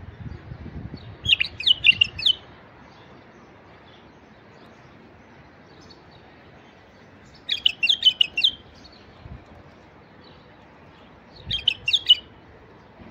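Male white-eared bulbul (Iraqi bulbul) singing three short, quick phrases of bright notes: one about a second in, one about halfway through, and one near the end.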